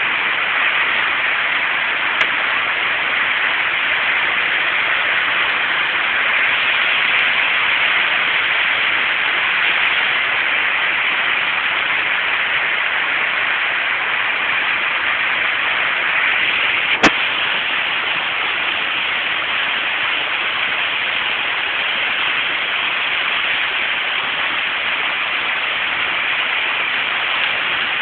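Heavy rain falling in a steady, even hiss. There is a single sharp click about two-thirds of the way through.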